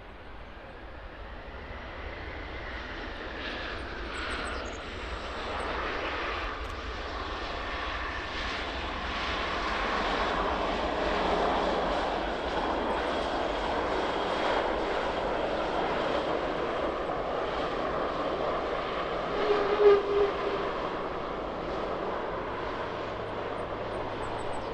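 Jet airliner on landing approach passing close by, its engine roar building over several seconds with a whine that glides down in pitch as it goes past. The roar then holds steady, with a brief louder burst about twenty seconds in.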